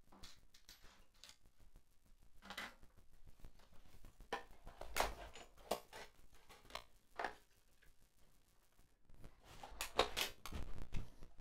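Cardstock pieces and small craft tools being handled and set down on a cutting mat: irregular light rustles and clicks, busiest near the end.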